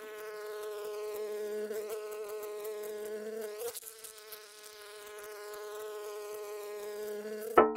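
Cartoon bee buzzing sound effect: a steady nasal buzz with a brief break about halfway through, ending in a sharp smack near the end as the bee hits the windowpane.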